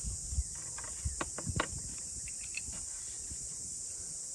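A few light clicks and knocks, most of them between about one and one and a half seconds in, over a steady high-pitched hiss.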